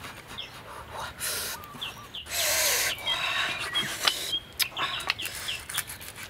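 Heavy cleaver cutting through crispy roast pork skin on a wooden log chopping block: crunchy cuts, the longest and loudest a little past two seconds in, with sharp knocks of the blade on the wood. Birds chirp throughout.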